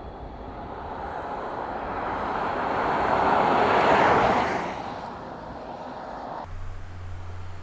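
Range Rover Velar diesel driving past, its tyre and engine noise swelling to a peak about four seconds in and then fading. Near the end the sound cuts abruptly to a steady low hum.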